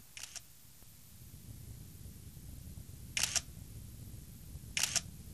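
Camera shutter clicking three times, each a quick double click: once at the start, again about three seconds in, and again near the end. A faint low hum sits underneath.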